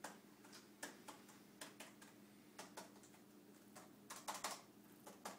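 Faint, irregularly spaced clicks of a computer's keys and buttons as someone works at it, with a quick run of three or four clicks about four seconds in.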